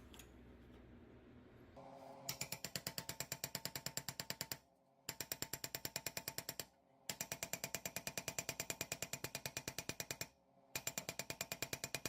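A ratchet clicking rapidly, about ten clicks a second, in runs of two to three seconds separated by short pauses. It starts about two seconds in, after a faint hum.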